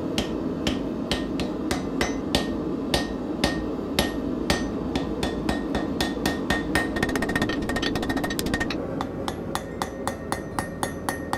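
Hand hammer striking a glowing Damascus steel billet on an anvil, each blow ringing briefly: about two blows a second, with a quick run of lighter, faster taps about seven seconds in before the steady blows resume. The smith is hammering a split, delaminated billet to weld it back together.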